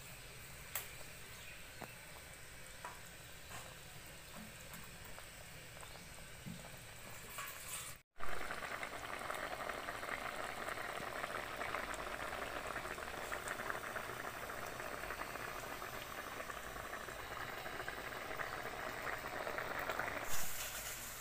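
Fish and potato curry boiling in a metal pot: faint for the first eight seconds, then, after a brief dropout, a louder, dense, steady bubbling of the thin gravy.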